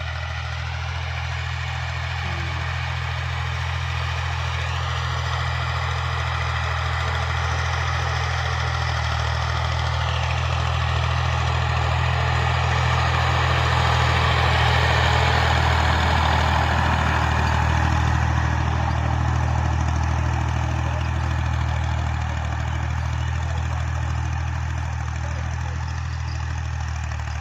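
Tractor engine running steadily, its low hum swelling a little about halfway through and easing off toward the end.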